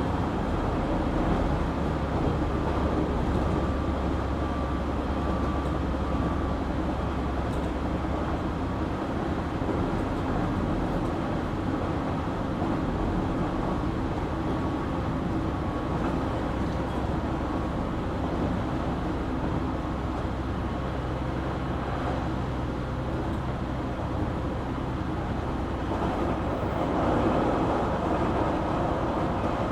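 Running noise of a JR Kyushu 817 series electric train heard from inside the car between stations: a steady rumble of wheels on rail with faint steady whining tones. This unit is an odd-sounding car whose running sound resembles a Keio 7000 series.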